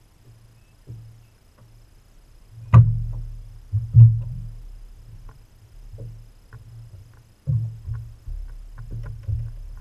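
Knocks and thumps on a boat's deck, each with a low hollow boom from the hull. Two loud knocks come about three and four seconds in, and lighter ones follow near the end, as a fish is handled in a landing net on the deck.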